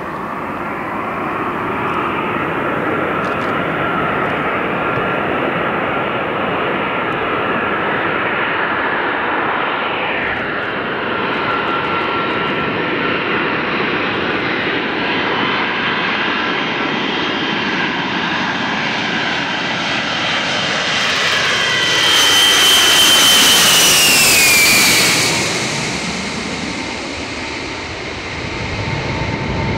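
Boeing E-3A Sentry AWACS (Boeing 707 airframe) on final approach, its four Pratt & Whitney TF33 turbofans running with a loud roar and high whine that build as it closes in. It is loudest as it passes overhead near the end, when the high whine slides down in pitch, leaving a lower rumble behind.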